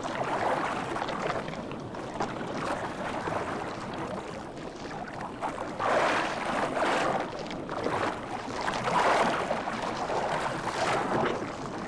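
Water splashing and churning in surges as tiger sharks thrash at the surface while feeding on turtles, with louder swells of splashing about halfway through and again near the end.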